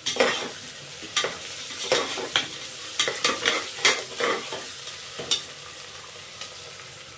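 Metal spoon scraping and clinking against the inside of a pressure cooker as soaked chana dal and ginger-garlic paste are stirred and fried in hot oil, over a steady sizzle. The scrapes come roughly every half second at first and stop after about five seconds, leaving the sizzle.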